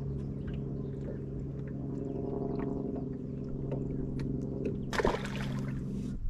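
A boat motor hums steadily at one pitch and cuts off abruptly near the end. A short burst of splashy noise comes about five seconds in.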